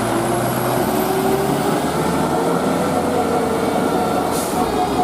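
Large buses going by, their engines running loudly. A few steady horn tones come in and out, stronger near the end.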